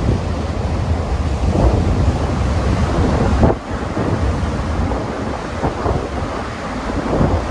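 Strong wind gusts buffeting the microphone with a heavy low rumble, over large Lake Erie waves crashing onshore. The sound drops off abruptly for a moment about halfway through, then resumes.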